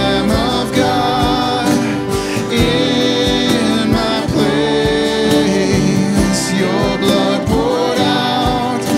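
Live worship band playing a slow song: acoustic and electric guitars and keyboard, a cajón keeping a steady beat, and voices singing the melody.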